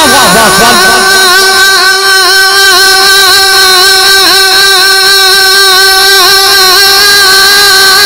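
A man's voice singing a naat, holding one long note with a slight vibrato through a microphone and loudspeaker system, amplified loud.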